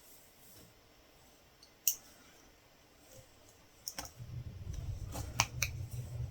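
Sharp small clicks of a latch hook tool working yarn into rug canvas: a single click about two seconds in, another near four seconds, then a quick run of three more toward the end. A low rumble sets in about four seconds in and continues.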